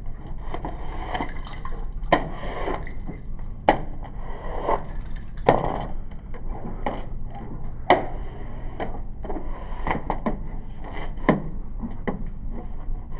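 Irregularly spaced knocks and clatter, roughly one every second or so, as spent casings and debris are cleared off a shooting-range floor, with the phone being handled.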